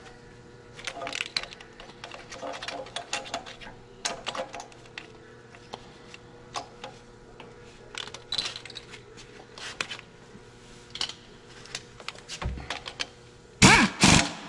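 Hand tools and metal parts clicking and rattling in irregular bursts while the turbocharger actuator is bolted onto a Cummins ISL diesel engine, with two louder squeaks near the end.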